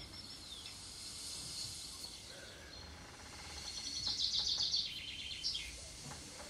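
Small birds chirping over a steady background hiss, with a rapid trill of repeated high chirps a little past the middle.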